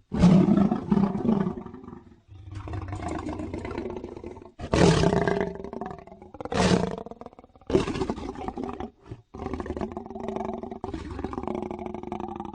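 Big-cat roars and growls, presented as an American lion sound effect. A loud roar comes right at the start, followed by about five more roars and drawn-out growls with short breaks between them.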